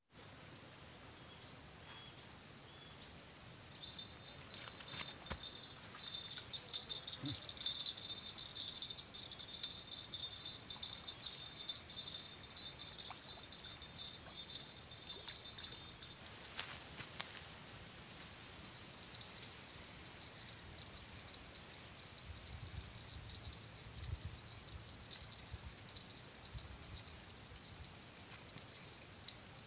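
Insects calling in a steady high-pitched drone, joined about two-thirds of the way through by a second, pulsing insect chorus.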